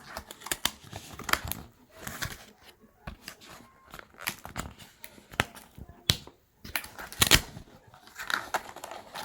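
Phone box packaging being handled: cardboard and paper rustling and tearing, with irregular taps and clicks.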